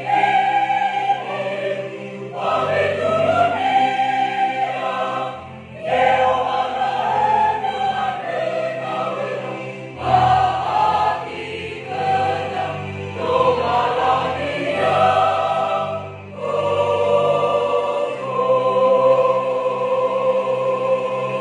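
Mixed church choir of men's and women's voices singing a praise song. The phrases are broken by short breaths every few seconds, and the last phrase is held on long, steady notes.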